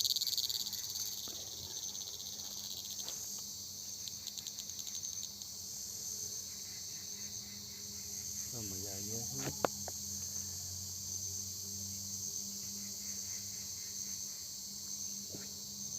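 Crickets chirring steadily in a forest after rain, a high continuous trill with a faster pulsing stretch in the first few seconds. About nine seconds in comes a brief lower call, followed by a single click.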